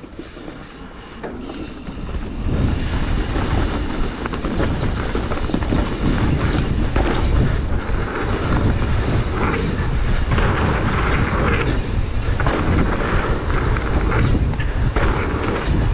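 Mountain bike descending a dirt trail at speed: wind buffeting the microphone over the rumble of tyres on dirt and the bike's rattling, getting much louder about two and a half seconds in as the bike picks up speed.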